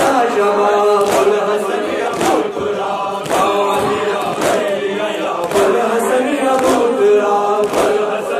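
A noha sung into a microphone by a male reciter, with a crowd of men chanting along in unison. The crowd's matam, chest-beating struck together, lands about once a second as a sharp beat.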